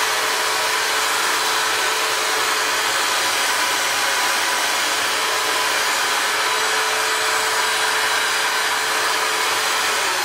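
Electric belt sander running steadily at full speed, an even motor whine over the hiss of the belt.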